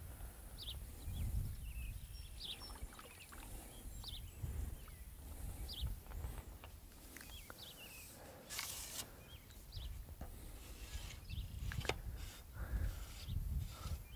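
A brief splash about eight and a half seconds in as a hooked creek chub thrashes at the water's surface, over a bird chirping short high notes about once a second and a low rumble.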